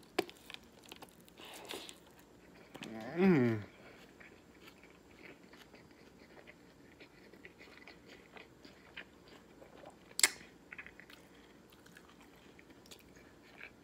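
A person biting and chewing a taco close to the microphone: scattered small crunches and wet mouth clicks, with a short voiced sound falling in pitch about three seconds in and a sharp click about ten seconds in.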